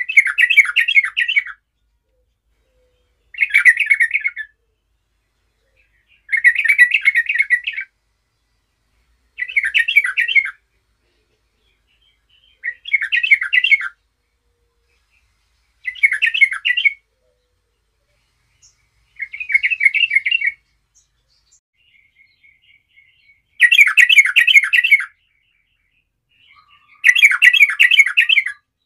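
Yellow-vented bulbul (trucukan) singing: a short phrase of rapid warbling notes, about a second long, repeated roughly every three seconds. The last two phrases are longer and fuller.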